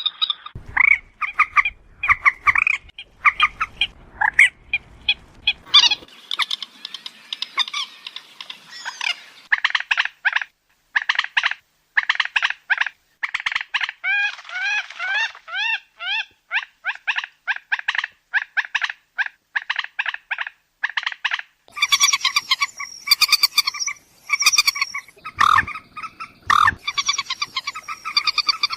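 Moorhen calling: a long rapid run of short, repeated clucking notes, several a second, with a stretch of curved, sweeping notes about halfway through.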